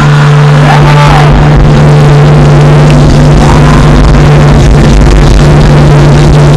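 Live band music played over a concert sound system, picked up so loud that it is distorted: a steady low droning note holds throughout, with a couple of sliding pitches over it.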